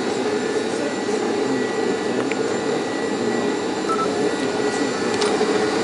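Open cable lift running as it lowers down the volcano's crater shaft: a steady mechanical hum with faint high whining tones, and a couple of faint ticks.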